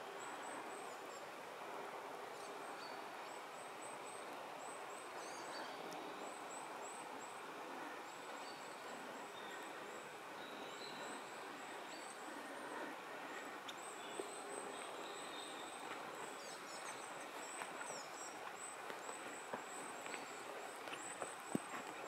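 Woodland ambience: a steady rushing background hiss with long series of very high, thin bird calls repeating throughout. A few sharp snaps near the end.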